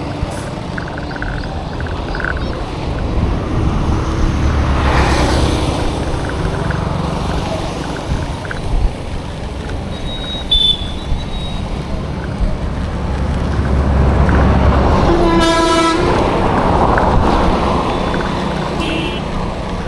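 Road traffic running past with a steady low engine rumble, one vehicle passing close about five seconds in. A vehicle horn gives a single short toot about fifteen seconds in.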